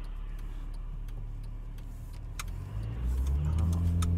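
Car engine heard from inside the cabin, idling steadily, then revving up and getting louder about three seconds in as the car pulls away from the junction and accelerates.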